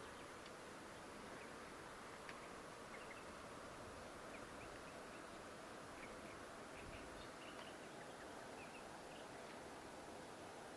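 Faint, steady outdoor hiss with scattered short, high bird chirps.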